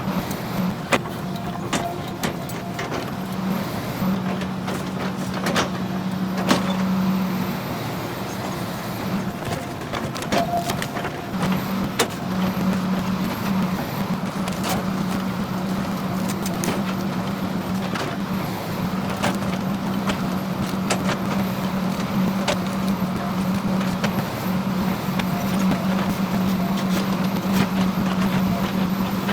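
Excavator engine running steadily with a constant drone, with scattered sharp cracks and knocks from the stump shear working on a tree stump.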